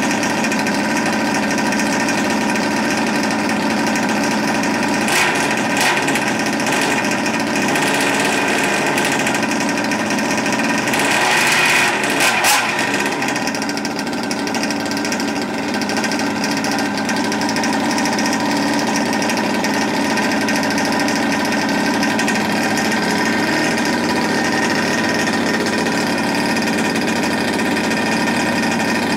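OBR 57cc twin-cylinder two-stroke engine in a large-scale RC buggy, running steadily at a high idle and picking up briefly near the middle. It is running rich on freshly fitted carburettors that are not yet fine-tuned or run in.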